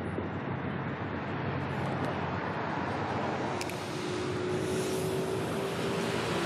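Steady low rumble and hiss of distant ship engines and wind. A faint steady hum gives way to a slightly higher steady tone about halfway through.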